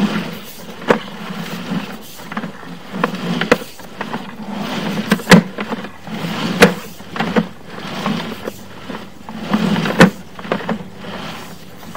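Sewer inspection camera's push cable being retracted onto its reel: steady rubbing and scraping with a low hum, broken by sharp knocks every second or two.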